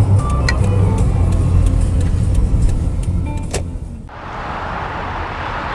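Car driving, heard from inside the cabin: a low engine and road rumble with light ticking clicks. About four seconds in the rumble drops away abruptly, giving way to a steady outdoor hiss.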